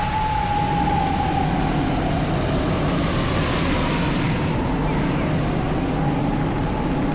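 Steady hiss of heavy rain in a city street, with a sustained high tone that slowly sags in pitch and rises back near the end.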